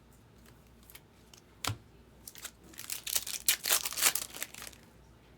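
Plastic wrapping on a trading card box being torn open and crinkled in the hands, a dense crackling burst of about two seconds, with a single sharp knock shortly before it.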